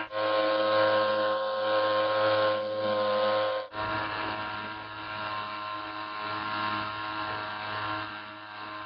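Small outboard motor on a light plastic boat running at a steady speed. It breaks off sharply about four seconds in, then runs on at a slightly different pitch.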